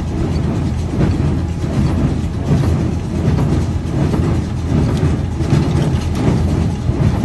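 Claas Dominant baler running off a tractor, its mechanism clattering steadily over the tractor's engine, with a rough swell about once a second.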